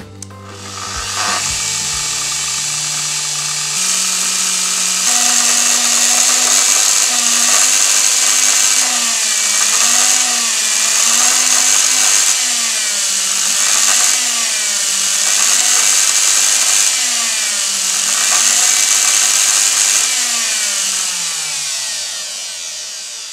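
Festool TS55 REQ plunge-cut track saw running free with no cut, its brushed motor whining. It spins up at the start and steps up in speed twice in the first five seconds, then its pitch rises and falls in a slow wobble about every two seconds, and it winds down near the end.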